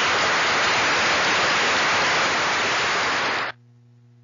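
A steady burst of hiss-like noise, loud and even, that starts abruptly and cuts off suddenly about three and a half seconds in, leaving only a faint hum.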